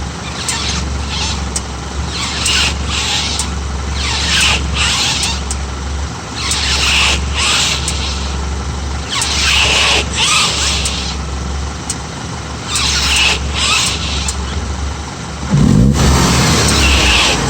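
Audi A4 B8 allroad with the 2.0 TFSI turbo four-cylinder, making a strange noise: a high-pitched squeal that comes in repeated bursts of about a second every couple of seconds, over a steady low engine hum. Near the end a louder, deeper rumble comes in.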